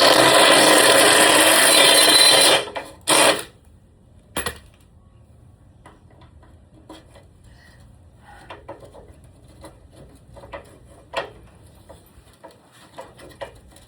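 A power drill runs for about two and a half seconds, driving into the ladder, then gives two short bursts. After that come only faint taps and clicks of handling.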